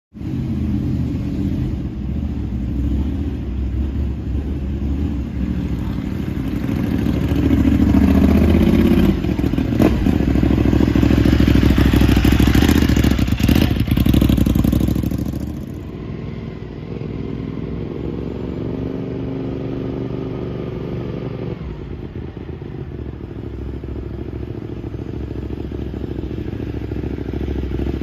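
Ducati 899 Panigale's Superquadro V-twin running through a Termignoni exhaust at idle. About a quarter of the way in it is revved up and held louder, then drops back to idle just past halfway.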